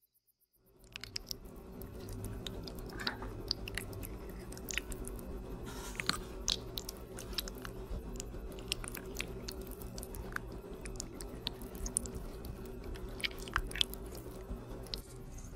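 Wet, sticky squelches and many small sharp clicks from fingers pressing and kneading soft eyeball props in thick liquid, over a low steady hum. It starts just under a second in, after near silence.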